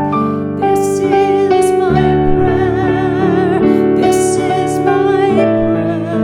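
Slow, gentle song: a woman singing sustained notes with vibrato over piano accompaniment.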